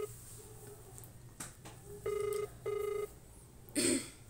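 Phone ringback tone of an outgoing call: a double ring, two short beeps in quick succession about two seconds in. A short burst of noise comes near the end.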